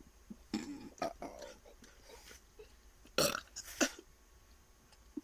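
A person burping in several short bursts after chugging water, the loudest a little over three seconds in.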